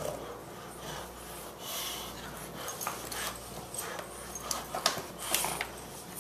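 Two boxer dogs breathing hard and mouthing at each other as they wrestle over a plush toy, with a few short sharp noises about four and a half to five and a half seconds in.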